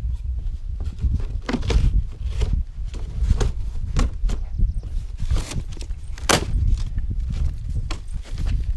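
Large cardboard shipping box being handled and opened: irregular sharp cracks and knocks of the cardboard flaps and tape, over a steady low rumble.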